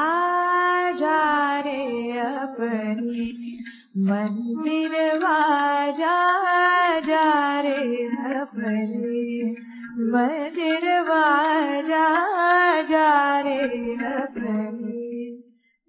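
A woman singing solo without accompaniment, in three phrases that break off briefly about four seconds and about eight and a half seconds in.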